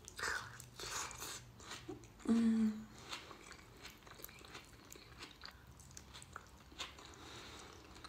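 A mouthful of onion being bitten and chewed: soft wet crunches and mouth clicks, with a short hummed 'mm' about two and a half seconds in.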